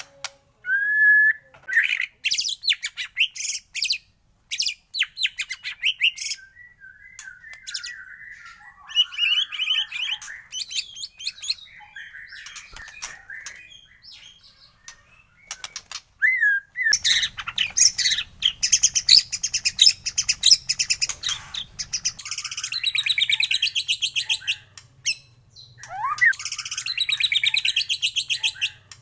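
White-rumped shama (murai batu) song, played as a lure recording to set caged shamas singing. It is a varied, continuous song of whistled phrases and pitch glides, broken by sharp clicks and long rapid trills in the second half.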